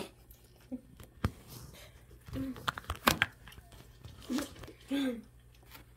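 Tanghulu being bitten and chewed: the hardened sugar shell crunches and crackles, with two sharp cracks, one about a second in and one about three seconds in.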